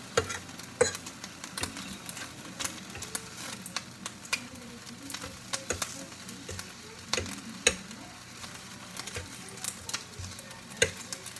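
Bacon sizzling and frying in a hot pan, with frequent sharp clicks and taps of a metal fork against the pan as the bacon is turned.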